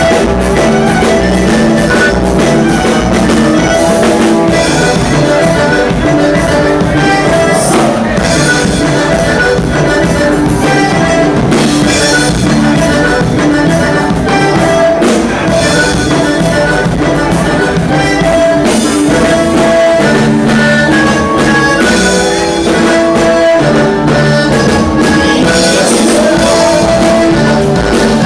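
Loud band music with a drum kit keeping a steady beat and a singing voice over it.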